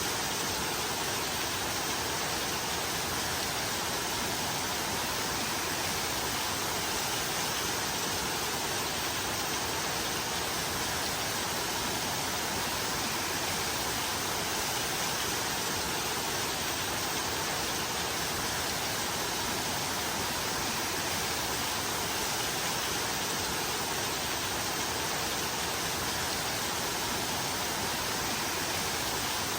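Steady rain, an even unbroken hiss with no single drops, thunder or other events standing out.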